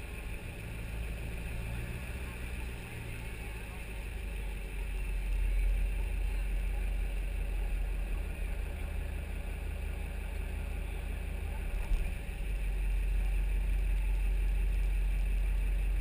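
Duramax LBZ 6.6-litre V8 turbodiesel idling in a steady low rumble, with one short sharp knock about three-quarters of the way through.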